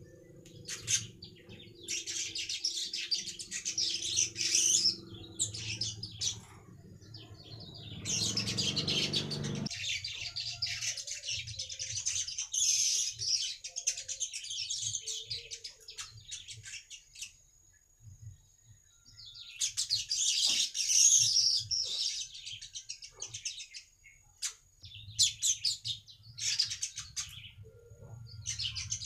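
Manyar (weaver bird) singing: long, high-pitched chattering song phrases, four or so in turn with short pauses between. A low background hum runs under the first third and returns near the end.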